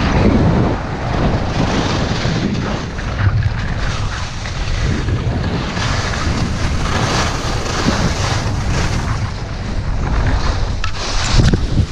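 Wind rushing over an action camera's microphone during a fast downhill run on snow, mixed with the hiss of sliding on the snow. A brief louder surge near the end, then the level drops as the rider slows to a stop.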